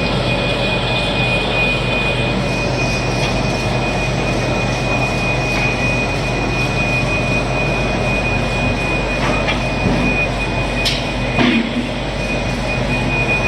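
Printing machinery running steadily: a constant mechanical din with a high, steady whine and a low hum, and a few sharp clicks in the second half.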